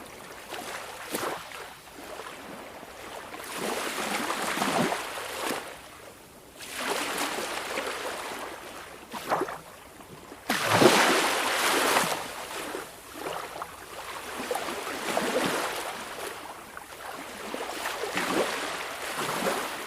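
Small waves from a calm sea washing onto the shore in irregular swells a second or two apart, the biggest wash about ten seconds in.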